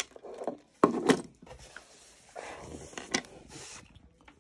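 Handling noises: a few sharp knocks and clatter as a bunch of car keys is picked up from a tabletop, then rubbing and scraping of a cardboard shipping box being handled, with another knock about three seconds in.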